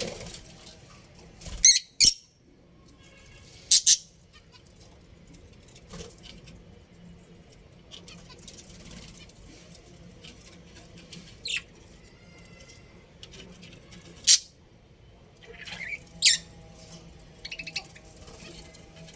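Budgerigars giving short, sharp, high-pitched chirps and squawks at irregular intervals, with a loud pair of calls about two seconds in and more scattered through the rest.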